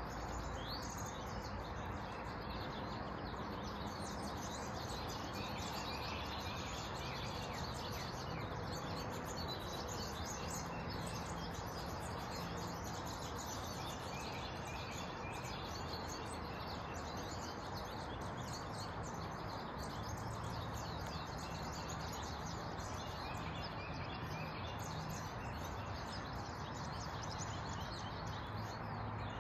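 Outdoor ambience: a steady background hiss with frequent short bird chirps and calls throughout.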